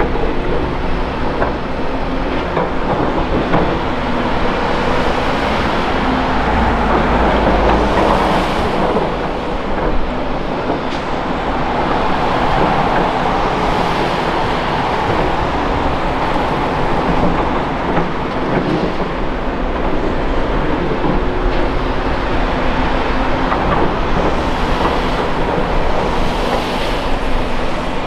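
Volvo ECR235E excavator's diesel engine and hydraulics working steadily as it digs and loads dirt and rocks into a Volvo A30G articulated dump truck, whose engine runs alongside. A few brief knocks come through over the steady machine noise.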